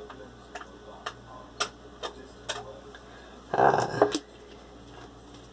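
Light, sharp ticks about two a second, then a short low vocal sound a little past the middle.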